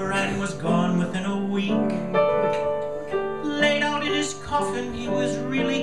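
Piano accompaniment to a comic Irish-style ballad, with a man singing over it.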